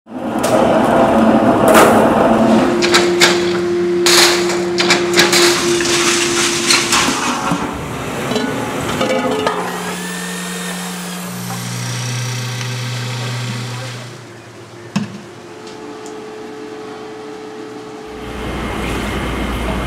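Metalworking workshop noise in several cuts: rapid metal clattering and knocking over a steady machine hum, then a drill motor running steadily, changing pitch once, and a low machine hum near the end.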